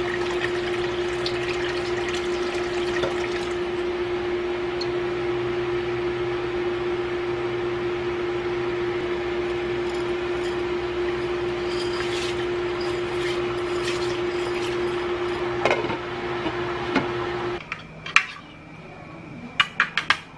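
Water pouring and sloshing in a wok of soup over a steady hum, with a few light knocks of utensils against the pan. Near the end the hum stops and a spoon and fork clink a few times against a plate.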